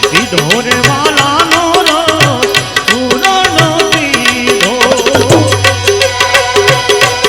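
Music from a Gujarati Ram bhajan: an ornamented melody line over a fast, steady percussion beat, with a low held note coming in about five seconds in.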